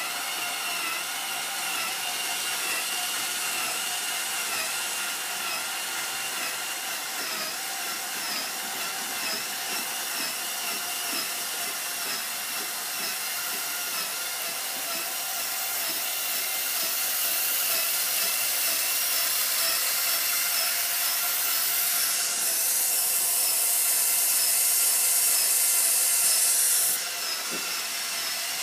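Articulated Wheel Horse 4x4 tractor's belt drive and transmission running on their first test: a steady mechanical whirring with a whine. It grows louder and hissier past the midpoint, then drops back suddenly near the end.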